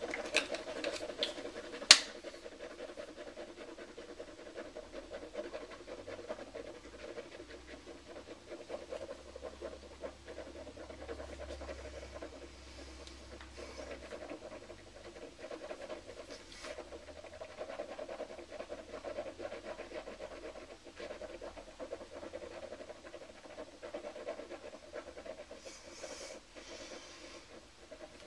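Heavy breathing through the nose from a woman holding a mouthful of Listerine mouthwash with her lips closed against its burn, with one sharp click about two seconds in.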